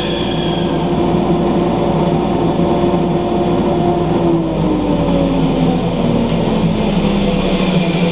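Bandsaw and dust collector motors running with a steady hum. About four seconds in, one motor is switched off and its tone falls steadily as it spins down.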